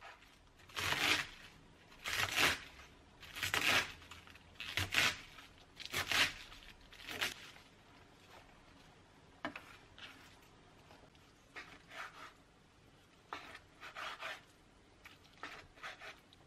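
Knife slicing through crisp napa cabbage leaves on a wooden cutting board: about six loud crunching strokes in the first seven seconds, then softer, sparser cuts and light knife taps on the board.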